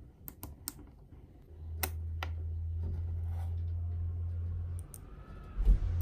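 Mini magnet balls clicking as they snap together and are handled, several sharp clicks in the first two and a half seconds. A steady low hum comes in about a second and a half in, and a thump near the end is the loudest sound.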